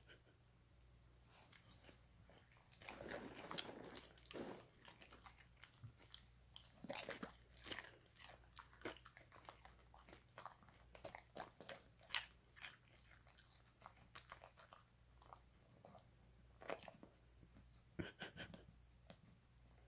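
A dog chewing popcorn: short crunches and bites that come in irregular clusters.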